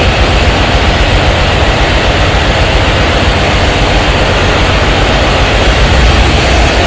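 Steady, loud din of a ship's engine-room machinery running, an even noise with a deep hum underneath.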